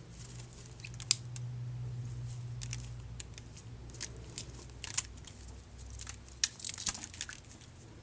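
A budgerigar bathing in a shallow water dish: scattered small splashes and flicks, with a quick cluster of them near the end. A low steady hum runs underneath and stops about six and a half seconds in.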